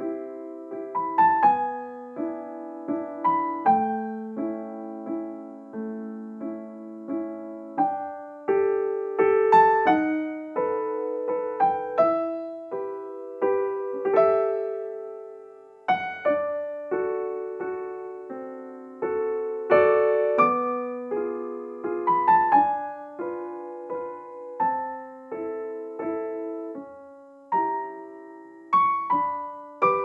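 Background music: solo piano playing a melody of struck notes and chords, each note decaying after it is struck.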